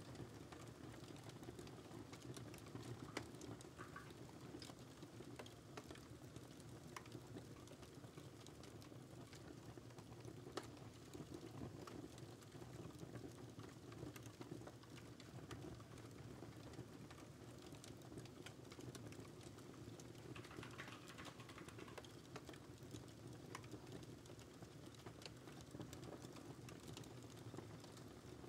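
Faint computer-keyboard typing, scattered keystrokes over a steady crackling-fireplace recording.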